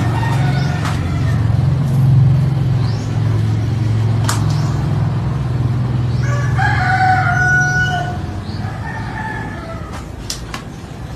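A steady low drone that fades out about eight seconds in, with a drawn-out animal call lasting about a second and a half, starting about six and a half seconds in, and a few sharp clicks.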